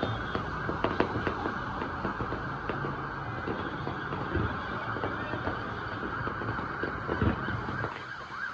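Distant fireworks going off: scattered bangs and crackles with a few deeper thumps over a dense, steady city din. A rising and falling siren-like wail comes in near the end.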